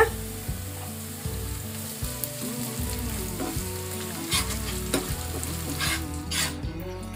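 Chopped onions and ginger-garlic paste sizzling in hot oil in a non-stick kadai while a steel spoon stirs them. A few short scrapes and taps of the spoon against the pan come near the end.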